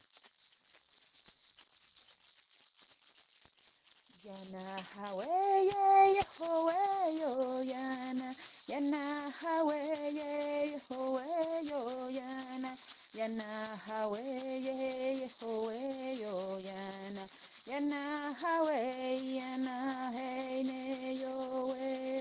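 A hand rattle shaken steadily throughout, joined about four seconds in by wordless singing in long held notes that slide into pitch, a slow melody.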